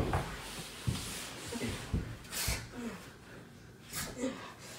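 A person breathing hard and letting out short grunts, with a few brief soft knocks in between.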